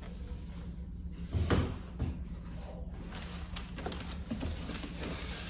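Cardboard box and styrofoam packaging being handled while unpacking: a dull knock about a second and a half in and another shortly after, then light scraping and rustling.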